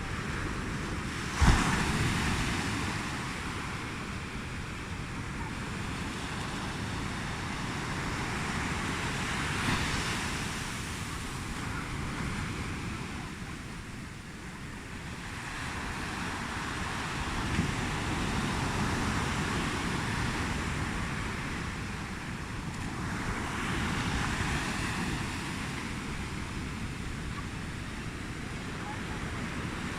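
Ocean surf breaking and washing up the shore in slow swells every several seconds, with wind rumbling on the microphone. A single sharp thump about a second and a half in is the loudest sound.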